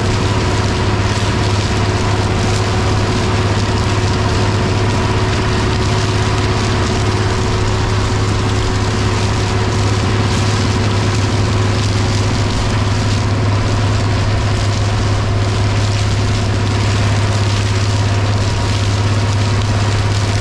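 International 1256 tractor's turbocharged six-cylinder diesel running steadily under load, pulling a stalk chopper through standing corn stalks. A deep engine drone carries a steady high whine and a constant rushing hiss from the chopper shredding stalks.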